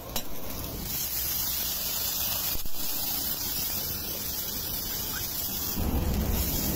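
Water poured into a smoking-hot iron wok of stir-fried vegetables, hissing and sizzling as it flashes to steam. The hiss sets in about a second in, and a low rumble comes up near the end.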